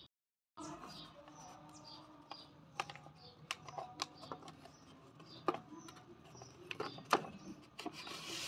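Handling of a rolled-paper craft pencil: scattered light clicks and taps as it is gripped, with a short rustling hiss near the end as the paper cone cap slides off the tube. Small birds chirp repeatedly in the background.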